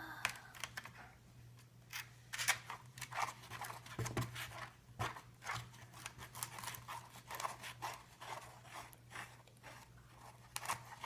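Freshly mixed glue slime being worked and squished, a long run of irregular sticky crackles and clicks.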